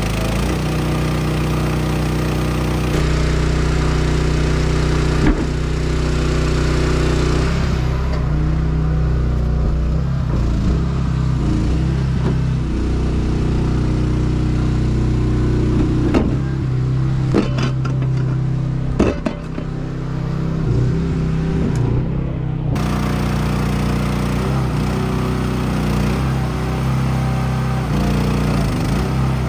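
Engine running steadily, its tone shifting a few times as the load changes, with a few sharp knocks and clatters about halfway through.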